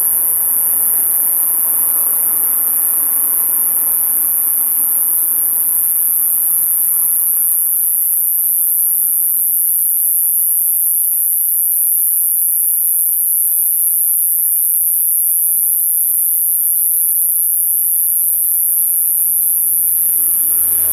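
Male Euconocephalus thunbergi coneheaded katydid (kubikirigisu) giving its continuous, high-pitched buzzing call, steady and unbroken. A faint low background rumble sits under it in the first few seconds.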